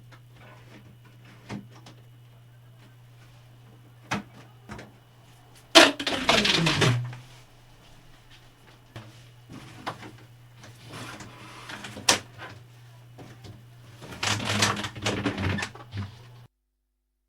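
Knocks and scrapes of things being handled and moved, including a loud scrape that falls in pitch about six seconds in and a longer rustling scrape near the end, over a steady low hum. The sound cuts off suddenly just before the end.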